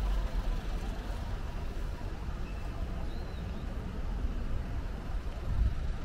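Outdoor city ambience: a steady low rumble of road traffic, with a short faint high chirp about three seconds in.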